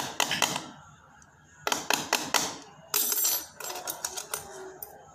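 Rapid clicking and rattling in several short bursts, from hands handling thin metal wires close to the microphone.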